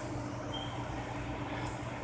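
Steady low mechanical hum, with one faint click near the end.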